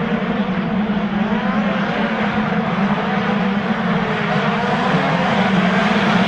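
A pack of motocross dirt bikes racing, many engines running together at high revs, their pitches rising and falling as the riders work the throttle over the jumps.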